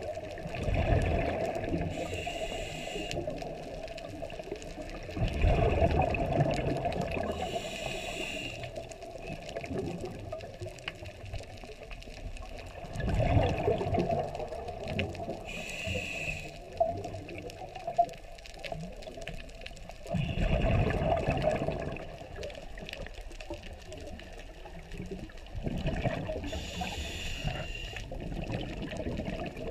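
Scuba diver breathing through a regulator underwater: slow breaths, each exhale a loud gurgling rush of bubbles about every six or seven seconds, with a thin hiss of inhaling between them.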